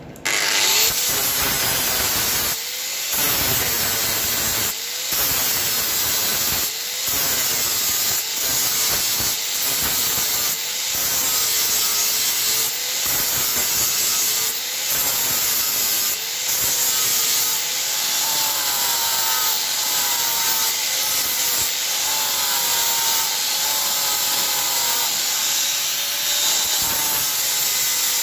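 Angle grinder grinding down the welds on steel box section, blending and rounding the welded edges. The grinding noise starts at the very beginning and dips briefly every couple of seconds, and the motor's whine wavers in pitch as the pressure on the disc changes.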